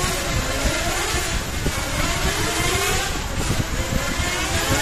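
Electric 1/10 RC touring cars lapping a track: high motor whines glide up repeatedly as the cars accelerate out of corners, several overlapping, over a steady rushing noise.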